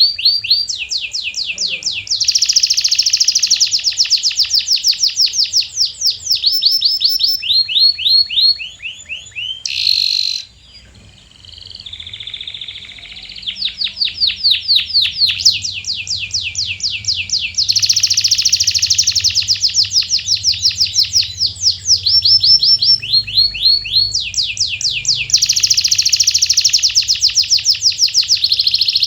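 Canary singing in long rolling trills, each phrase a fast run of identical sweeping notes, switching to a new phrase every second or two. There is a brief break about ten seconds in.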